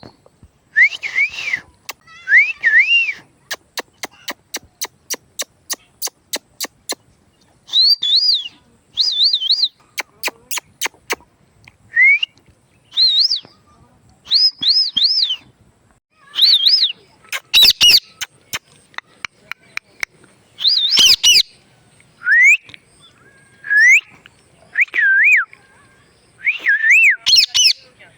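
A pet parrot whistling and chirping in short notes that swoop up and down, with runs of rapid sharp clicks in between.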